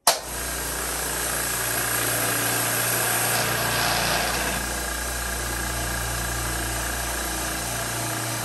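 Two Makita Quiet Series air compressors, the 1 HP 2-gallon MAC210Q and the 1.5 HP 3-gallon MAC320Q, running together as they fill their empty tanks: a steady motor and pump hum. It starts abruptly at the beginning and holds even throughout.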